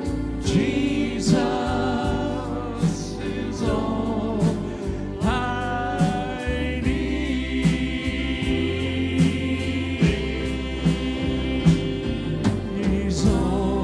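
Live worship band playing a gospel song: voices singing over acoustic guitar, keyboard and drum kit, the drums keeping a steady beat.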